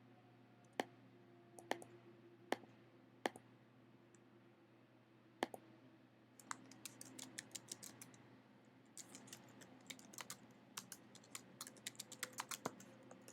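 Faint computer keyboard typing: a few single key clicks spaced about a second apart, then quick runs of typing from about six seconds in, over a faint low hum.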